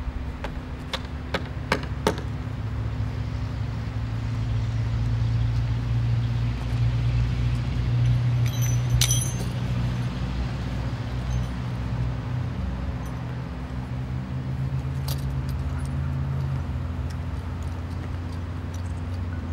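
Metal clinks and jingles of a lineman's climbing and rigging hardware as he works the rescue rope: a few sharp clinks in the first couple of seconds and a brighter jingle about nine seconds in. Underneath, a steady low engine rumble.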